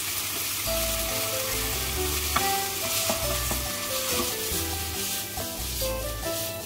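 Diced chicken and onions sizzling in oil in a frying pan, stirred with a wooden spatula. Background music with low bass notes plays underneath.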